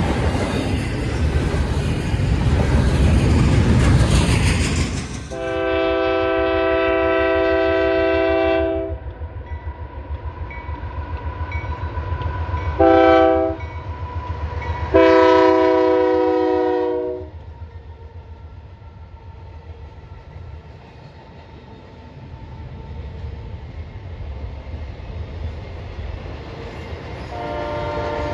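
A train's multi-note locomotive air horn sounds a long blast, a short blast and another long blast, with the rumble and clatter of the passing train beneath. The train's rumble is loudest at the start, and another horn blast begins near the end.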